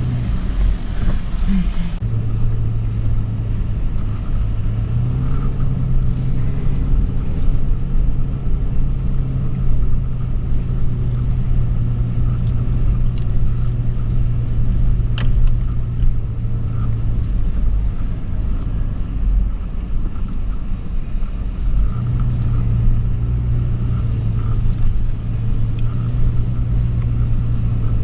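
2013 Toyota 4Runner's 4.0-litre V6 running under steady load with a low rumble, its hum stepping up in pitch about five seconds in, dropping away for a few seconds after the middle and then returning. A single sharp click about halfway through.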